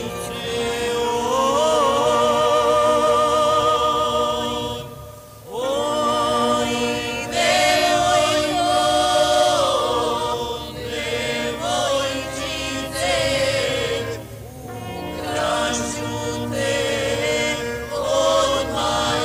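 Choir singing long held, wavering notes with music behind, breaking off briefly about five seconds in.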